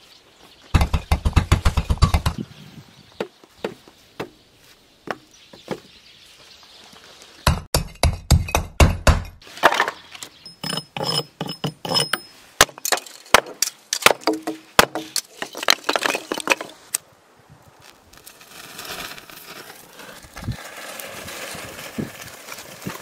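Hands-on camp work with wood and brick: two quick runs of rapid knocks, then a string of separate sharp wooden knocks and chops, some with a brief high ring. Near the end, paper and kindling catch in a small brick stove with a soft, steady crackle.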